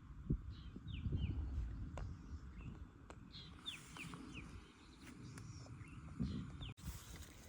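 A bird calling in short series of quick, falling chirps, two or three at a time, repeated several times, over a low rumbling background.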